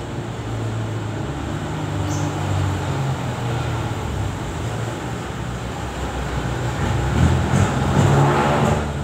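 A motor vehicle engine running, a steady low hum that swells louder for a couple of seconds near the end.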